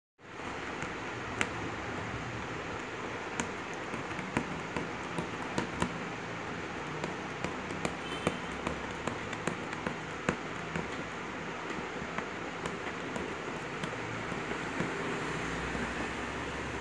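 Aari hook needle tapping and punching through taut embroidery fabric: sharp, irregular clicks, about one or two a second, over a steady background hiss.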